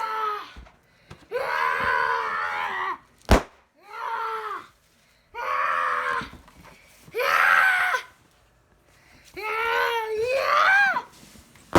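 A child's drawn-out yells and cries, about six in a row with gaps between them. One sharp pop about three seconds in is the loudest sound.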